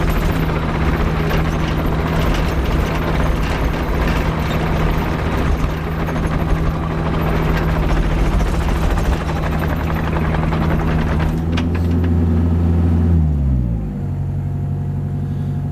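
Diesel engine of a 5-ton Kubota excavator running at high revs with mechanical clatter. About 13 seconds in, the revs fall smoothly and it runs on at a lower, steady speed.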